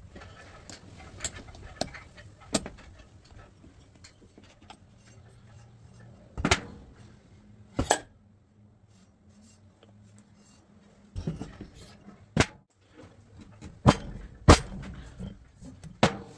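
Steel and aluminium machine parts clinking and knocking on a metal workbench as a pulley, taper bushing and wheel are handled and fitted by hand: a string of separate sharp knocks, over a faint low hum in the first half.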